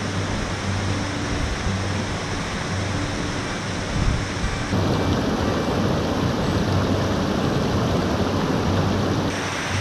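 Rushing water of a mountain creek cascading over boulders and small falls, a steady hiss that grows louder about five seconds in. Soft background music sits faintly underneath.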